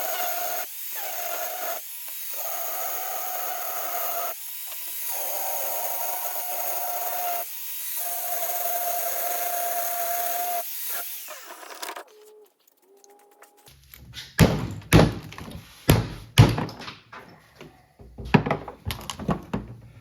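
A power tool cutting through the steel bolts of a well pump casing: a steady high whine with a hissing edge that stops briefly and restarts several times, then ends about twelve seconds in. After a short lull come rapid sharp knocks on metal as the pump sections are worked apart.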